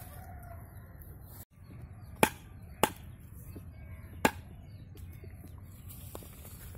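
Three sharp knocks, about two, three and four seconds in, over a steady low rumble.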